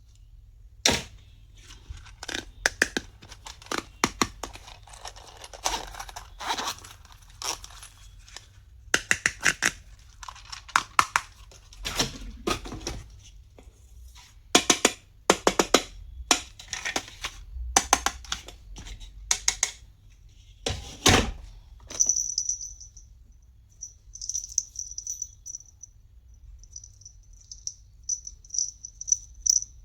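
Plastic stationery and packaging being handled: a run of clicks, taps and short rustles. About two-thirds of the way through the handling stops and a faint high-pitched whine comes and goes.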